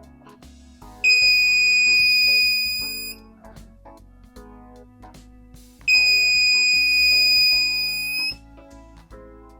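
Buzzer of a homemade Arduino smoke detector alarm sounding two long, steady, high-pitched beeps, each about two seconds long and a few seconds apart.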